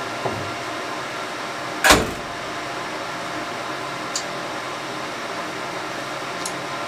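The hinged lid of an Epilog laser engraver swinging shut with one loud thud about two seconds in, over a steady background hum.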